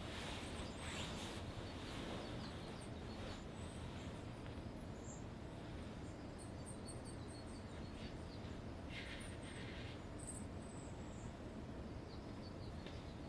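Small birds chirping faintly in short, high notes scattered throughout, over a steady low background hum.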